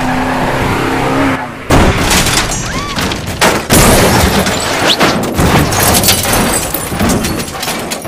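Vehicle crashes: a run of heavy smashing metal impacts, with big hits just under two seconds in and near four seconds in, and a truck tumbling over into wrecked cars near the end.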